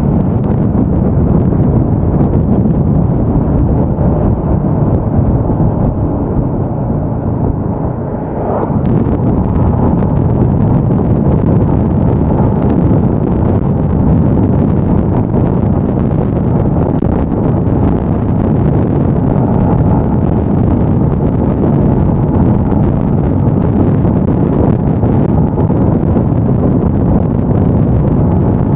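Motorcycle riding at speed: heavy wind rushing over the microphone mixed with the Yamaha Y15ZR's 150 cc single-cylinder engine running steadily. There is a brief dip with a rising note about eight seconds in.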